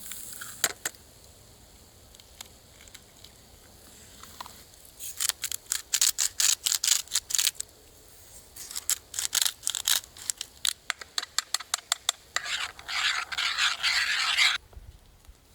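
Metal utensil clicking and scraping quickly against camp cookware, in runs of rapid strokes, followed by about two seconds of hissing that stops abruptly near the end.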